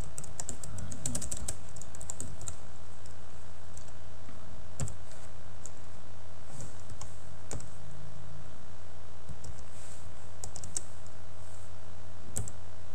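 Typing on a computer keyboard: quick runs of keystroke clicks with short pauses between them, over a steady low electrical hum.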